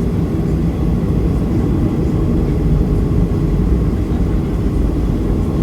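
Steady low cabin rumble of a Boeing 737-300 with its CFM56 engines running, heard from inside the passenger cabin while the plane is on the ground before takeoff.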